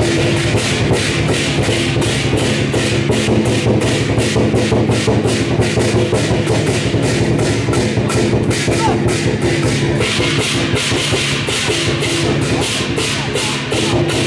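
Traditional Chinese dragon-dance percussion, a drum with gongs and cymbals, beating a fast, steady rhythm of about four strikes a second.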